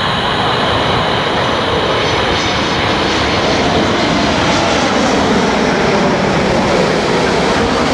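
Loud, steady jet roar of a Boeing 747-8 freighter's four GEnx turbofan engines on low final approach, landing gear and flaps extended. In the second half the pitch drops slightly as it passes overhead.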